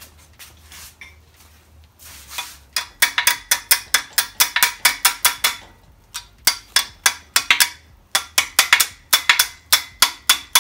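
Rapid hammer blows on steel, about four a second in three runs with short pauses, each strike ringing: hammering at a stuck cam bearing in a Ford 5.0L small-block to knock it out, without it coming free.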